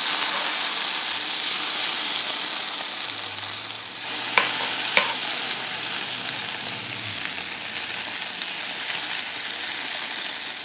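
Waffle batter sizzling steadily on the hot plates of an electric waffle iron as it is spooned on. Two light clicks near the middle, from a metal spoon against the ceramic pitcher.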